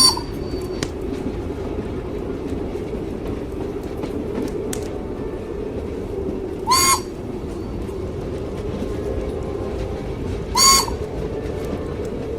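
Steady low rumble of a train running on the rails, heard as a continuous ride ambience. Three short, high whistle-like calls stand out above it: one at the very start, one about seven seconds in and one near the end.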